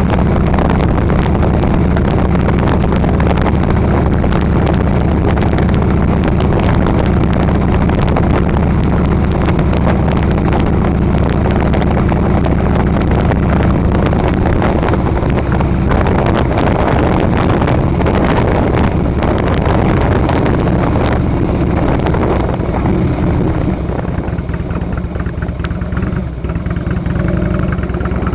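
Harley-Davidson V-twin motorcycle engine running steadily while riding at town speed, quieter for a few seconds near the end as the bike slows, then picking up again.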